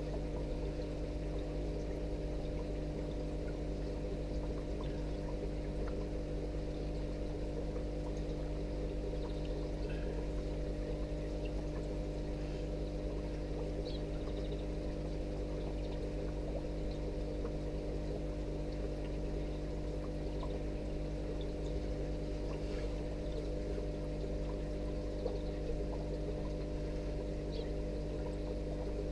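Aquarium filter running steadily: a constant pump hum with water trickling and splashing lightly.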